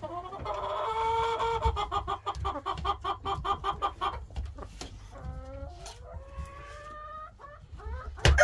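Chickens calling: a long pulsing call that lasts about four seconds, followed by several shorter calls rising in pitch, with a loud call starting right at the end.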